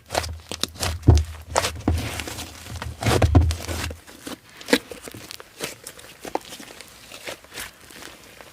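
Slime being squeezed and worked by hand, giving irregular sticky crackles and pops. A low rumble sits under the first half and stops about four seconds in.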